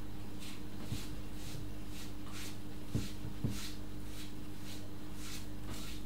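Pastry brush painting melted butter onto sheets of filo pastry: soft swishing strokes about twice a second over a steady low hum, with two light knocks around the middle.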